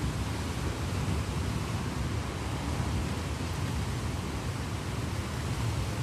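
Steady heavy rain: an even hiss with a low rumble underneath.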